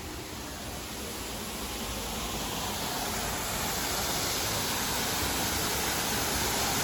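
Steady rushing noise with no distinct events, growing gradually louder.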